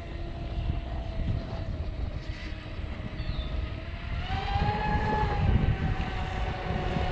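Whine of an RC speedboat's twin brushless electric motors running out on the water. The pitch steps up and grows stronger about four seconds in. Wind rumbles on the microphone underneath.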